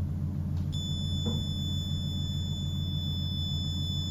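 The contactless doorbell's electronic buzzer, set off by a hand held over its ultrasonic sensor, sounding one continuous high-pitched beep that starts under a second in, over a steady low hum.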